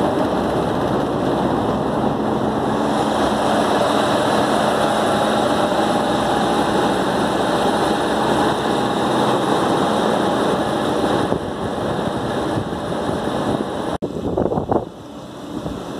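Rooftop air-cooled chiller and AC units running: a steady roar of condenser fans with steady humming tones over it. It cuts off abruptly near the end to a quieter, uneven sound.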